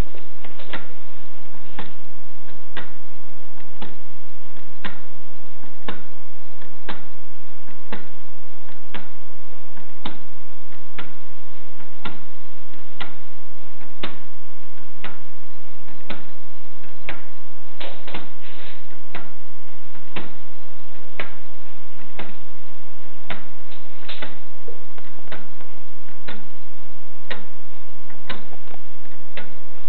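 Wooden-gear pendulum clock ticking about once a second, the clicks of its escapement, over a steady hum.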